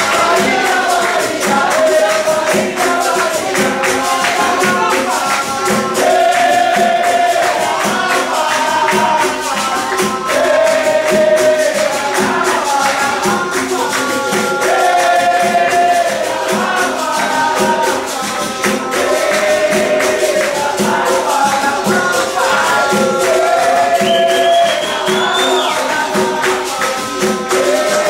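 Capoeira roda music: voices singing a melody over a pandeiro tambourine and other percussion keeping a steady, even beat.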